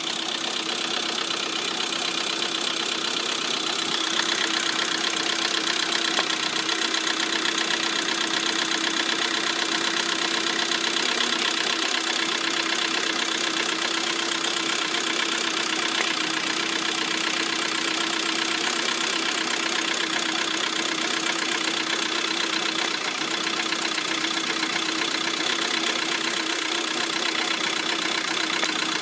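Lada Priora engine idling steadily with a fast, even ticking knock from the valve train: the sound of faulty hydraulic lifters, two of which have failed.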